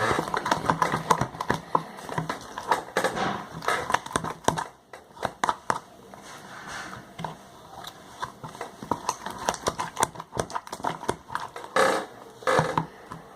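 Glue and slime activator being stirred with a spatula in a container: a run of quick sticky clicks and smacks, thinning out after about four seconds, while the mixture is still mostly unactivated glue.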